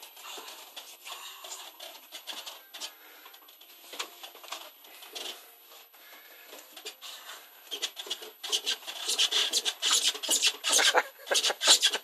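A dog mouthing and tugging a thick rope tied to a wooden bedpost, the rope rasping and rubbing against the post and bedding in a quick run of scratchy strokes. The strokes grow louder and faster over the last few seconds.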